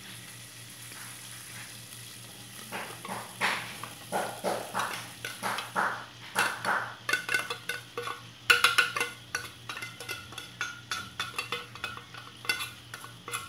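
Tuna and its oil sizzling gently in a pot over sautéed onion and garlic. From about three seconds in, a silicone spatula stirs and breaks up the tuna in repeated strokes, scraping and knocking against the pot, with the strokes coming faster and clickier from about halfway.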